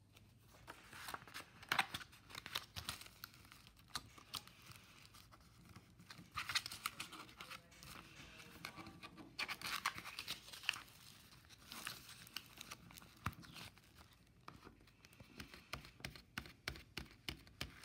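Rustling and clicking from handling an opened plastic DVD case, its paper insert card and the disc on its hub, in irregular clicks and rustles.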